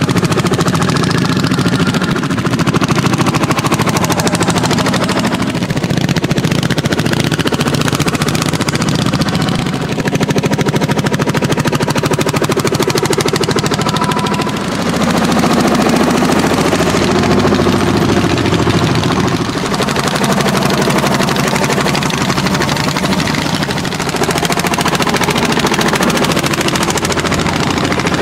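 Landini hot-bulb tractors running under load while plowing, their single-cylinder two-stroke engines giving a steady, rapid thudding beat.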